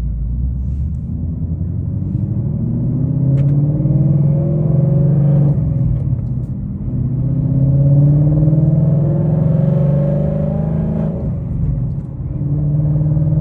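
2019 Ford Mustang GT's 5.0 V8, with Kooks headers and a Borla ATAK cat-back exhaust, accelerating: the pitch climbs steadily, drops at an upshift about five and a half seconds in, climbs again, shifts again about eleven seconds in, and pulls once more.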